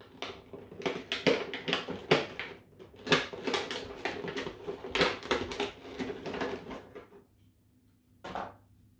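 Clear plastic packaging cover being pried off a tray in a cardboard box, crackling and clicking for about seven seconds, then one short rustle near the end.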